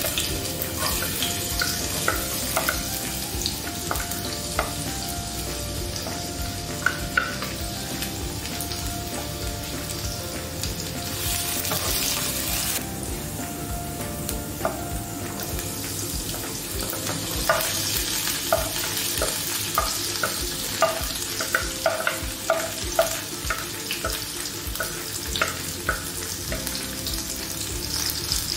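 Chopped garlic, then onion, sizzling in a little hot cooking oil in a nonstick frying pan. The food is stirred, and a utensil gives short clicks against the pan, coming more often in the second half.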